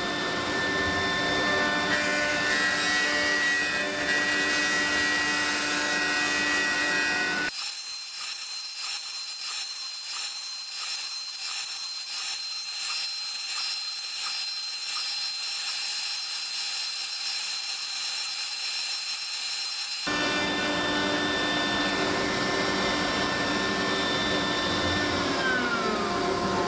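CNC router spindle milling a profile and mortise into an oak blank, a steady high machine whine with the cutting noise and the dust hose drawing off chips. From about 7 s in it turns thin and high with the low end gone for a stretch. About a second before the end the spindle's whine falls in pitch as it spins down after the cut.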